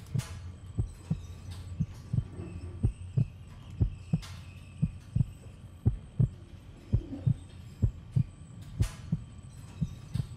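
Heartbeat sound effect: low double thumps, lub-dub, about once a second over a steady low hum, with three brief rushing noises (near the start, about four seconds in, and near the end).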